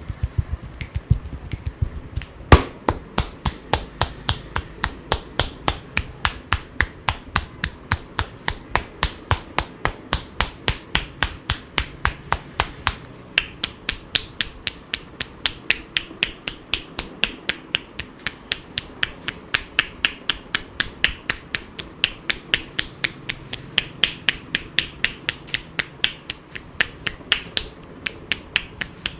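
Hands striking the body in fast, even percussive massage strokes, roughly three to four sharp slaps a second, with one much louder strike about two and a half seconds in.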